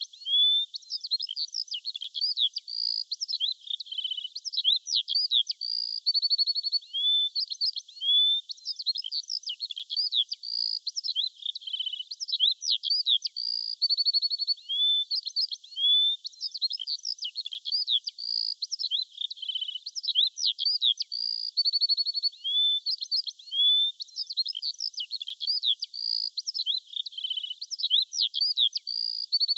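Birdsong: several birds chirping and trilling in quick, high-pitched phrases of rising and falling notes and rapid even trills, keeping up without a break.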